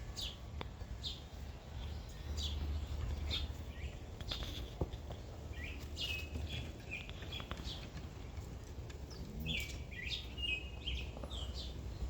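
Wild birds chirping, many short high chirps and calls scattered throughout, over a steady low rumble.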